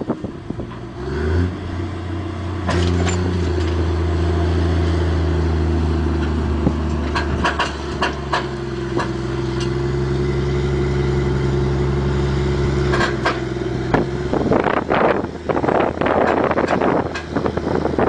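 Diesel engine of a New Holland four-wheel-drive tractor rising in revs about a second in and then running steadily, with scattered clicks and knocks. The engine note drops away around 14 seconds in, and wind buffets the microphone after that.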